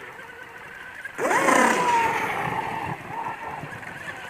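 Electric RC speedboat opening up to full throttle about a second in: the motor's whine climbs sharply in pitch, then holds high and slowly sags as the boat runs on, with a hiss over it, before fading.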